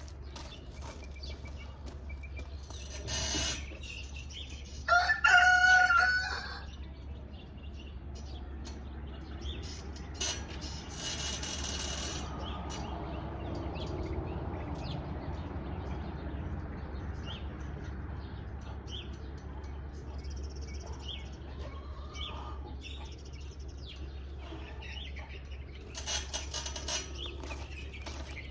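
A rooster crowing once, about five seconds in: one long pitched call, the loudest sound here. A few short bursts of rustling noise come before and after it.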